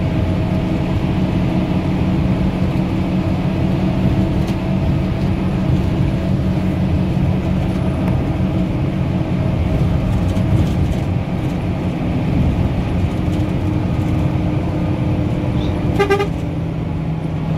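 Steady engine and road noise of a moving road vehicle heard from inside it, with a low hum. About sixteen seconds in, a vehicle horn gives one short toot.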